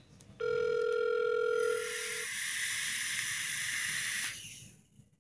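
Telephone ringback tone heard through a phone's speaker: one steady ring lasting about two seconds, then a steady hiss on the line for a couple of seconds that fades out.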